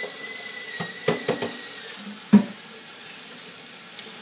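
Tap water running into a kitchen sink, with a thin steady whine that fades out about two seconds in. Several knocks and clunks come between about one and two and a half seconds in, the last of them the loudest.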